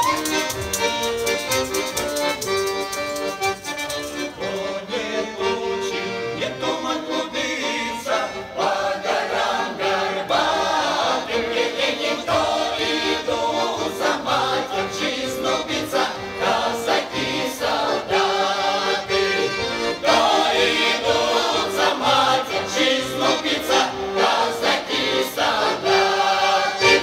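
Mixed folk choir of women's and men's voices singing a Russian folk song with accordion accompaniment; the song comes to its close near the end.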